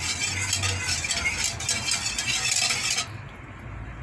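Spoon stirring and scraping around a small pot of warming honey, olive oil and cinnamon, a busy scratchy clatter that stops about three seconds in.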